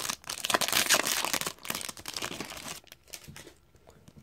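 Foil wrapper of an Upper Deck hockey card pack crinkling and tearing as it is opened, dying away after about three seconds.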